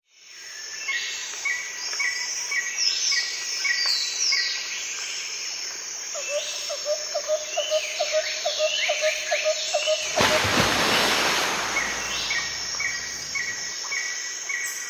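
Several birds calling and chirping in a natural ambience, with short repeated chirps and sweeping calls. A run of rapid lower chirps comes in the middle, and a loud rushing noise sweeps in about ten seconds in and lasts a couple of seconds.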